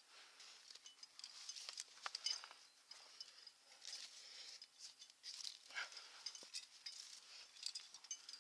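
Faint scraping, rustling and small irregular clicks as a climber's hands, clothing and rope move over limestone rock.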